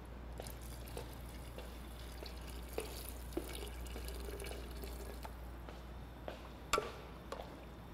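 Faint kitchen sounds: water trickling and dripping into a cooking pot, with scattered light clinks and taps and a pair of sharper knocks near the end, over a steady low hum.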